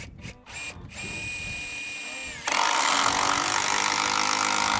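Cordless impact driver driving a screw into the framing: a few short blips, then a steady motor run, and from about halfway through a loud, rapid hammering of the impact mechanism as the screw bites into the wood.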